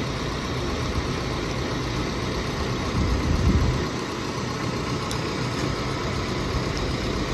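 Truck engine running steadily, driving the hydraulic boom crane mounted on it while a load of boards is lifted, with a short louder stretch about three seconds in.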